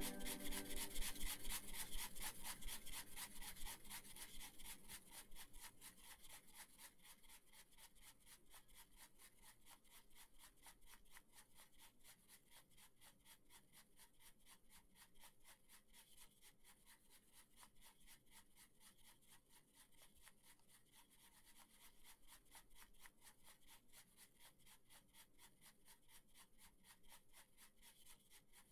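Music fading out over the first few seconds, then a faint, fast, even scratching of a bamboo tea whisk (chasen) whisking matcha in a tea bowl.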